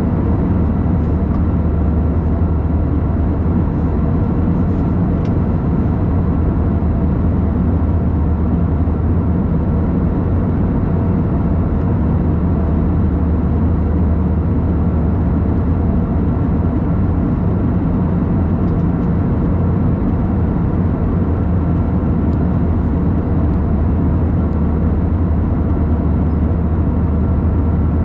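Airbus A321 cabin noise in flight: a steady, unchanging drone of engines and airflow, mostly a deep rumble with a few faint steady hums over it.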